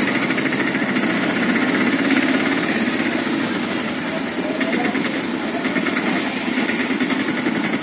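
Busy street noise with a small engine running steadily, a fast even pulsing drone.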